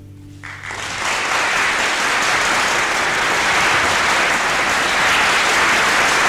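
The string trio's closing chord dies away, and about half a second in the audience breaks into steady applause.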